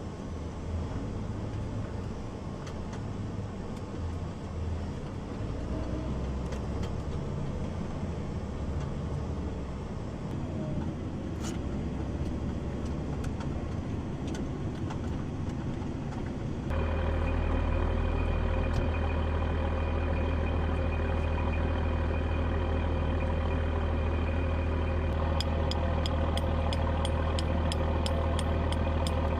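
Heavy engines running steadily. About 17 s in the sound cuts abruptly to a louder, steadier engine run with a strong low hum and steady tones above it. Near the end a fast, regular ticking of about three or four a second joins it.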